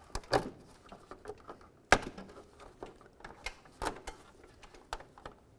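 Sharp plastic clicks and light rattling from a wiring harness being handled and its clips snapped into the back of a plastic grille. The loudest click comes about two seconds in.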